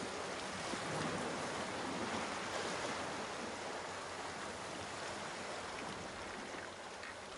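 Sea water washing against shore rocks: a steady rushing wash that swells a little in the first few seconds and then eases off.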